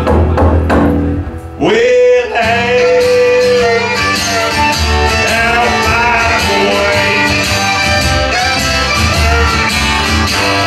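Live bluegrass trio playing: fiddle, acoustic guitar and upright bass, with a voice singing along. The music drops briefly about a second and a half in, then comes back with a long held note.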